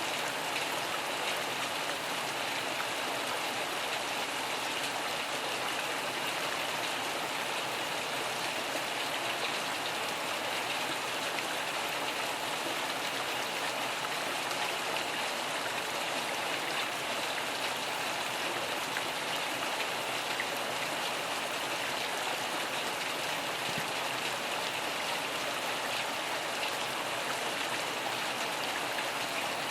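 Steady rain falling, an even hiss that holds at one level, with no thunder.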